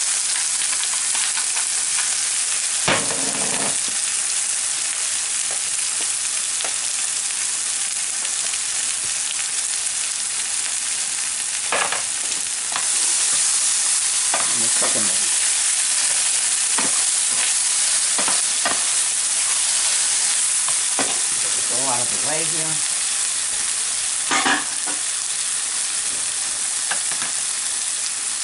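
Beef, onion and tomato sauce sizzling in a frying pan while a spatula stirs it, with scattered scrapes and knocks of the spatula against the pan. The sizzle gets louder a little under halfway through.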